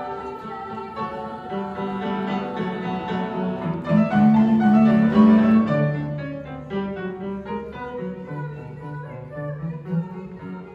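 Live choir and piano music under a conductor: sustained chords that swell to a loud peak about four seconds in and ease back after about six seconds.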